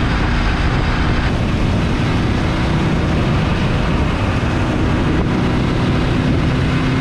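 A 1979 Suzuki GS750's air-cooled inline-four engine running steadily while the bike is ridden, under a constant rush of wind and road noise.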